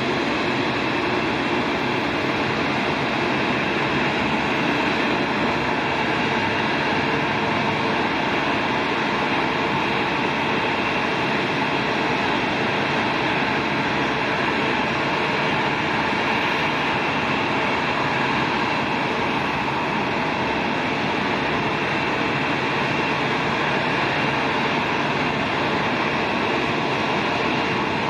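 Airliner jet engines idling on the ramp: a steady, even rush with a thin high whine, from a Boeing 737-800's CFM56 engines at taxi idle.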